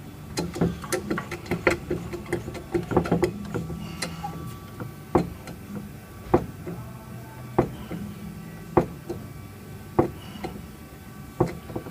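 Frame-straightening work on a steel frame rail: a quick run of clicks and knocks for the first few seconds, then single sharp knocks about every second and a quarter, over a steady low hum.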